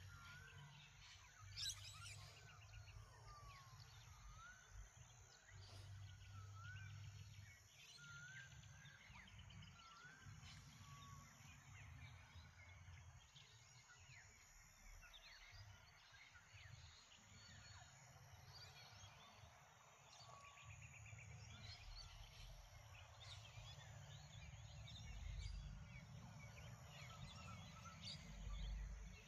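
Faint dawn chorus: several small birds calling with short chirps and whistles, one repeating a short upswept whistle about every second and a half in the first half, over a low wind rumble.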